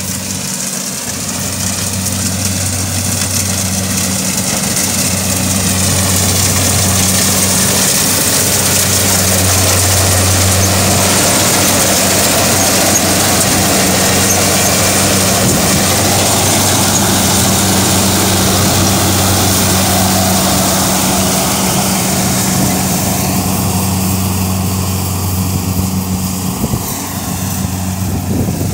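Kubota tracked rice combine harvester running close by: a steady diesel engine hum under the rushing noise of its threshing and grain-handling machinery, getting louder over the first few seconds.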